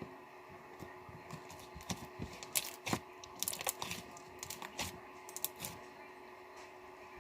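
Slime being played with by hand, giving irregular sharp clicks and pops, busiest in the middle.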